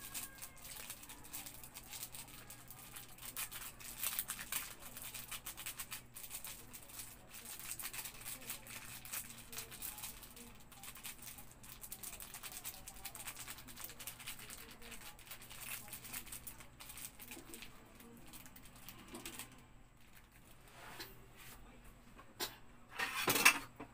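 Faint small clicks, scrapes and rustles of hands working food on a plastic plate, over a steady low hum. A louder brief clatter comes near the end.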